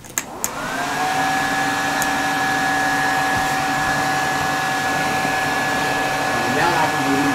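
Hooded salon hair dryer switched on with a couple of clicks, its fan motor spinning up over about a second and then running with a steady whir and hum.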